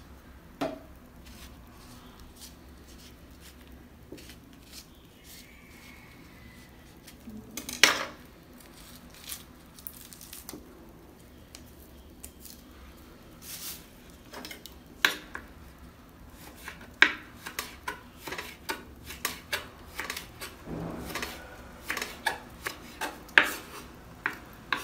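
An orange being peeled by hand, then its peel sliced with a kitchen knife on a wooden cutting board: scattered clicks and knocks of the knife on the board, closer together in the second half, the loudest about eight seconds in and near the end.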